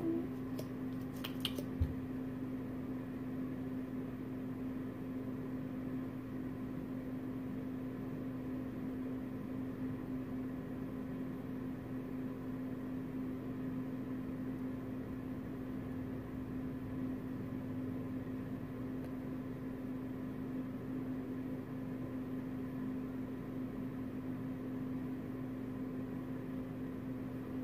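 Steady electrical hum with one held tone over even room noise, with a few light clicks and a soft knock about a second or two in.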